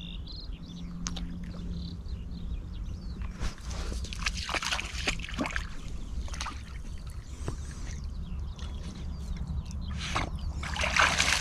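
A dog swimming and paddling in river water: uneven splashing and sloshing, busiest about three to six seconds in and again near the end.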